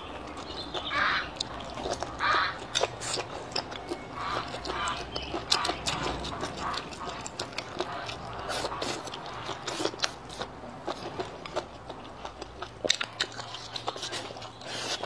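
Close-miked chewing and biting of a person eating braised squid tentacles and greens, with many short sharp mouth clicks.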